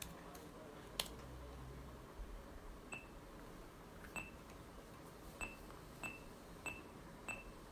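Faint electronic button beeps, six short ones at the same pitch about a second apart, after a single click about a second in: a small device being set up by its buttons just before a karaoke backing track begins.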